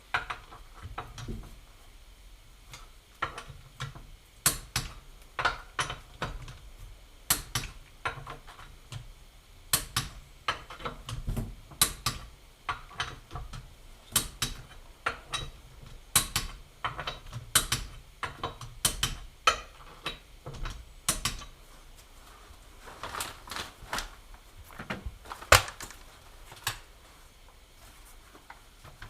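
A run of irregular sharp clicks and knocks, singly or in quick pairs, spaced about a second apart, with the loudest single knock a little before the end.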